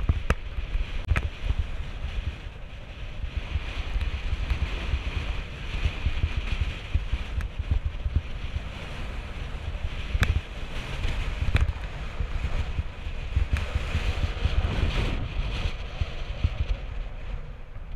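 Mountain bike descending a dry, rocky dirt trail: wind buffeting the microphone over the rumble of the tyres and bike on dirt. A few sharp rattles come as the bike jolts over rocks, at the very start and twice around ten to twelve seconds in.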